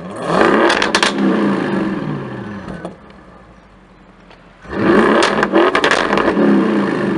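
Audi RS7 Performance's twin-turbo 4.0 V8 revved twice through its quad-tip exhaust. A sharp blip comes right at the start and settles back to idle over about two seconds. About four and a half seconds in, a second rev is held for a couple of seconds before dropping, with crackles at the top of each rev.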